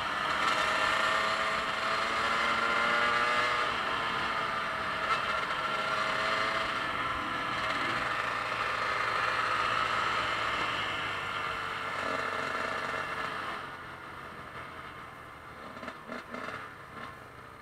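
Honda CRF250L single-cylinder dual-sport motorcycle engine running at road speed with wind rushing past, its pitch rising and falling slightly. About 14 s in the sound drops off sharply to a fainter running with a few scattered knocks.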